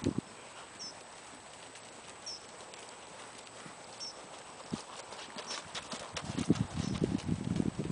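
Irish sport horse's hooves trotting on a soft arena surface, a run of muffled thuds that grows louder and denser over the last two seconds as the horse passes close.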